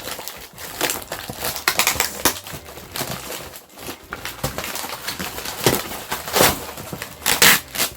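Plastic packaging crinkling and rustling as toy parts are handled and unwrapped, with irregular sharp crackles, the loudest in the last few seconds.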